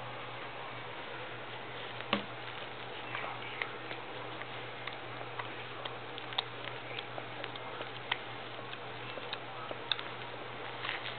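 Newborn poodle puppies suckling at their mother: soft, irregular little clicks and smacks scattered through, over a steady low hum.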